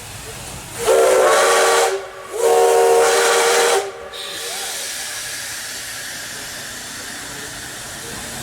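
Steam locomotive whistle sounding two long blasts, each a chord of several tones, the standard railroad signal to move off. A steady hiss of steam follows.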